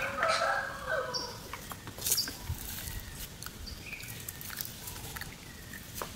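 A brief pitched animal call with a few stacked tones in the first second, then scattered light clicks and rustles with a few short, high chirps.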